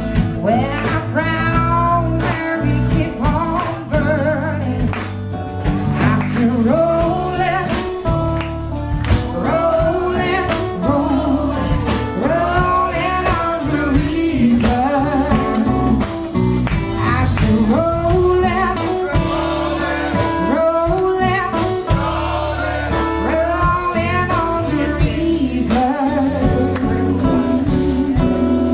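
Live band playing: a woman singing a melody over electric bass, guitar and drums, with a steady drum beat.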